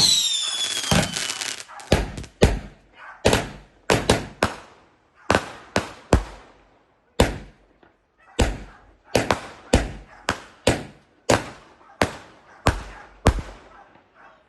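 Firecrackers going off: a long run of sharp, separate bangs, roughly one or two a second at uneven spacing, with a falling whistle at the start.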